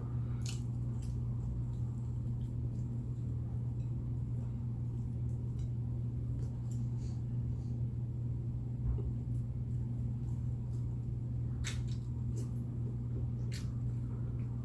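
Someone eating quietly, with sparse soft clicks and mouth sounds of chewing, over a steady low hum.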